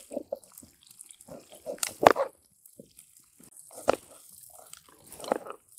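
Serrated knife slicing crisp amla (Indian gooseberries) on a cutting board, cutting the flesh away from the seed: irregular crunchy cuts and taps, the loudest about two seconds in.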